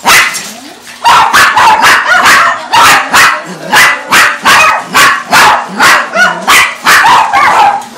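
Dog barking over and over: one sharp bark at the very start, then from about a second in a steady string of loud barks, roughly two a second.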